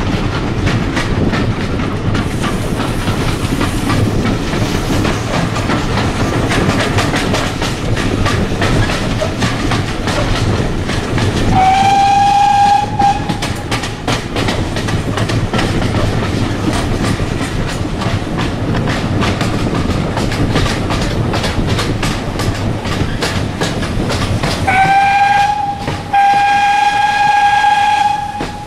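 Train hauled by GWR 4575 Class 2-6-2T steam locomotive no. 5526 running along, heard from a coach window, with a steady rumble and a clickety-clack of wheels over the rails. The locomotive's whistle sounds a short blast about halfway through. Near the end it sounds again, a longer whistle broken once by a brief gap.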